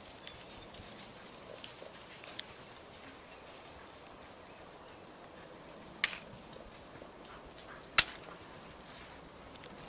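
Scent hounds moving through woodland undergrowth: faint rustling with a few sharp snaps, the two loudest about six and eight seconds in.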